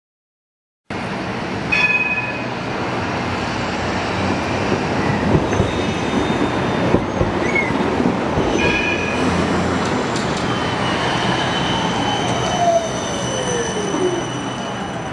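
GVB tram passing close by on street track, with brief high wheel squeals twice and a falling whine as it goes by. The sound starts abruptly about a second in.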